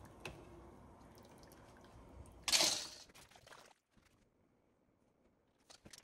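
A short, loud splash of water about two and a half seconds in, over a low steady background hum that cuts off abruptly about a second later; a few faint clicks near the end.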